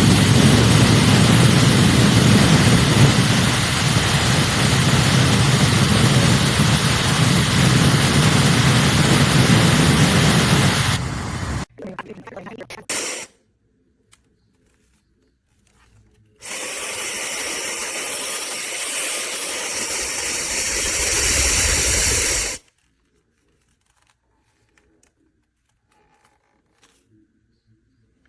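Wavytalk Turblow Pro high-speed hair dryer blowing, a loud steady rush of air that stops abruptly about twelve seconds in. After a brief burst and a pause it runs again for about six seconds with a high whine over the rush, then stops.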